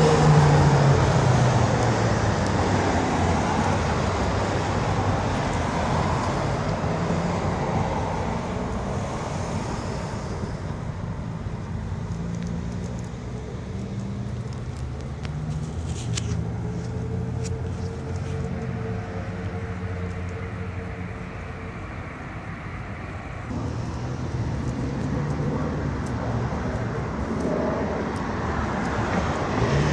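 Road traffic on a city street: cars driving past, with engine and tyre noise that is loudest at the start, dies down past the middle and builds again in the last few seconds.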